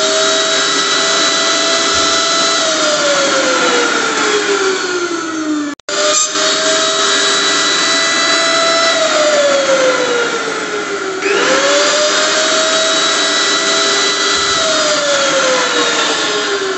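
Electric blender motor running hard, its whine climbing quickly to speed, holding, then sliding down in pitch, in three cycles, with a sudden brief cut about six seconds in.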